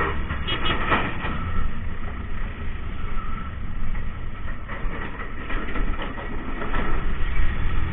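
Motorcycle ride noise on a rough road: a steady low rumble of the running bike with scattered knocks and rattles.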